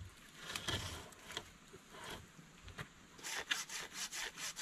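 Hand tool scraping or sawing on a wooden stick. After some scattered rustling, regular strokes set in about three seconds in, about three a second.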